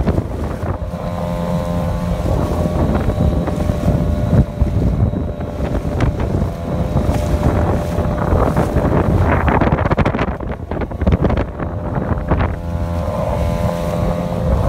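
Outboard motor running steadily on a PVC inflatable boat going through waves, with wind buffeting the microphone. In the middle the engine is buried under wind rush and the splash and slap of water against the boat, and it comes through clearly again near the end.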